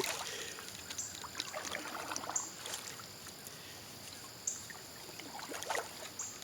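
Paddle strokes on calm water: small splashes and drips from the paddle blade. A short high chirp repeats about every second and a half.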